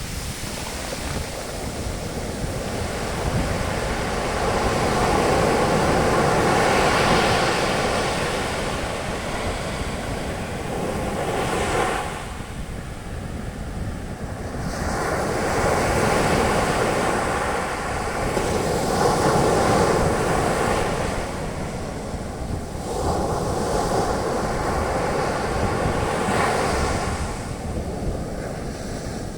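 Sea surf breaking on a beach and washing up as foam, swelling and fading in slow surges, with a lull about twelve seconds in.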